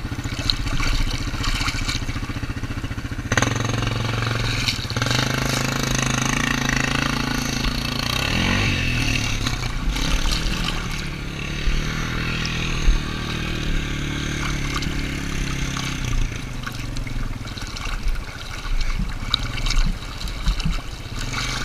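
ATV engine running steadily. It gets louder about three seconds in, its pitch briefly rises and falls a few seconds later, and it drops back near the end.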